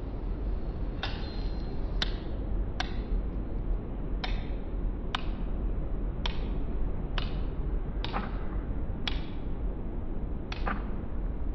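A hand tool striking a hard object: about ten sharp taps, roughly one a second but unevenly spaced, each with a short ring, over a steady low hum.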